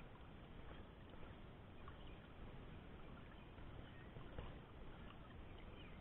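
Near silence: a faint, steady river ambience of gently moving water, with a few faint ticks.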